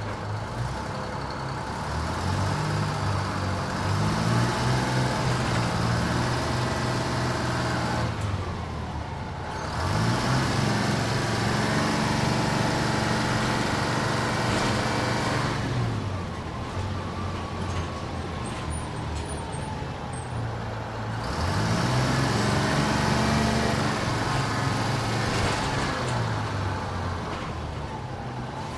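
1992 TMC RTS transit bus engine accelerating away from a stop. Its note climbs and steps as the transmission upshifts. This happens three times: about two seconds in, about ten seconds in and about twenty-one seconds in, with a falling whine as it eases off between the second and third runs.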